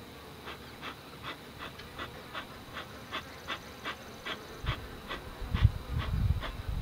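Rapid, even panting, about three breaths a second. Low thumps and rumbles join in near the end.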